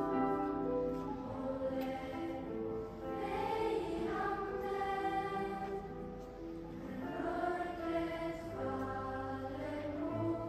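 A Lucia choir of school music-class pupils singing a slow song in long, held notes. A steady low accompanying note comes in about two-thirds of the way through.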